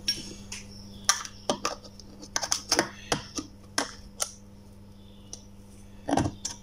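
Hard plastic motor end housing and motor body clicking and knocking as they are handled and fitted together: a scattered series of sharp clicks with a louder knock near the end. A faint steady hum sits underneath.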